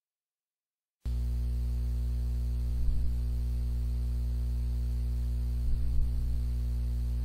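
Steady low electrical mains hum, starting suddenly about a second in after dead silence, with a couple of faint bumps around the middle and near the end.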